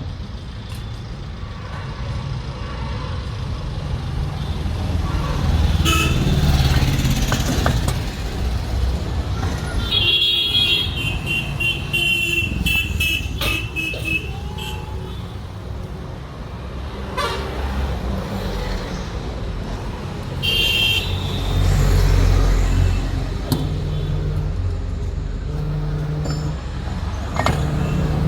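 Road traffic going past, with a steady low engine rumble that swells and fades. Vehicle horns honk between about 10 and 14 seconds in and again briefly around 21 seconds.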